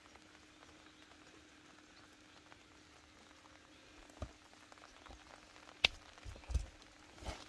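Light rain: a faint steady hiss with a few scattered taps and soft thumps in the second half, the sharpest just before six seconds in.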